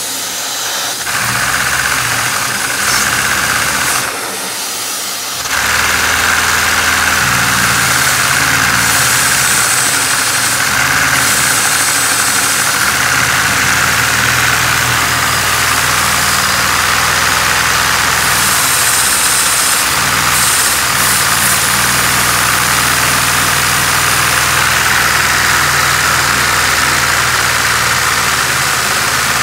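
Lego overhead-valve inline-four vacuum engine running fast on vacuum-cleaner suction: a steady rush of air with the rapid clatter of plastic pistons and valves. It dips briefly about four seconds in, then runs evenly.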